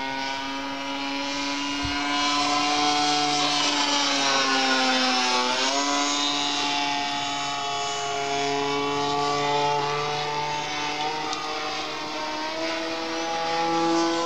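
Radio-controlled aerobatic model airplane flying overhead, its motor and propeller running with a steady pitch that sinks to a low point about five seconds in and then climbs again.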